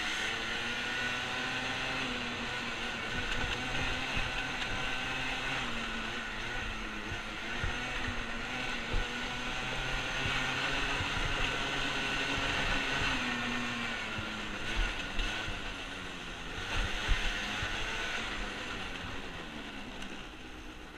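Small off-road engine running under throttle while being ridden, revs rising and falling as the rider speeds up and eases off, with a few knocks from the ride.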